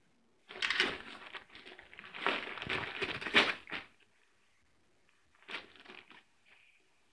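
Gift-wrapping paper crinkling and tearing as a pit bull rips at a present with its teeth, in a run of bursts for about three seconds, then once more briefly a couple of seconds later.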